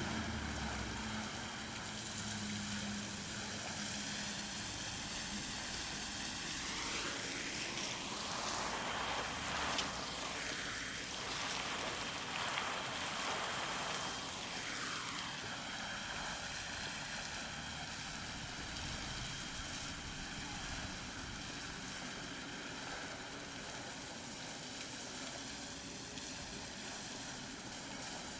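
Road traffic: a vehicle's engine note fades away in the first few seconds, then a car passes by about halfway through, its tyre noise sweeping up and back down, over a steady hiss of traffic.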